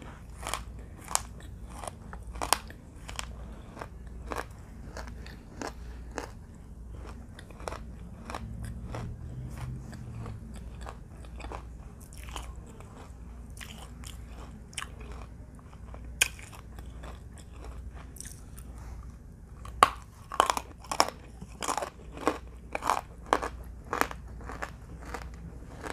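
Crunchy bites and chewing of dry clay chunks eaten for ASMR: a run of sharp crunches, about one or two a second, that thins out in the middle and grows dense again near the end.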